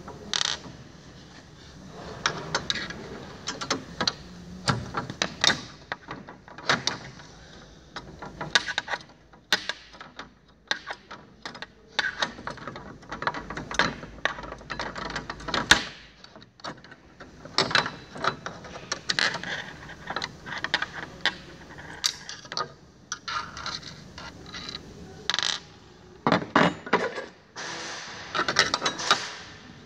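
Small steel screws being undone with a T-handle hex key from the steel mechanism plate of a wall bed: irregular metallic clicks, scrapes and clinks as the key turns and the screws are set down on the board. Near the end the loose metal plate rattles as it is lifted off.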